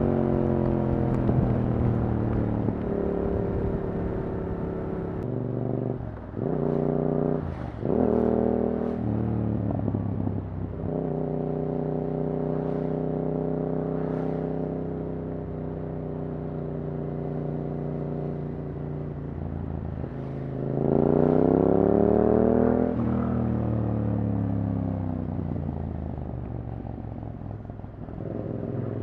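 Yamaha R7 motorcycle with an Akrapovič exhaust, ridden: the engine slows near the start, gives a few quick rev blips about six to nine seconds in, holds steady at cruise, then accelerates hard, rising in pitch from about twenty seconds in until a gear change about two seconds later drops the revs.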